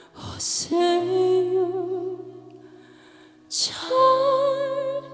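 A woman singing a slow trot ballad: long held notes with vibrato over a soft, steady accompaniment, with a short pause between phrases about three seconds in.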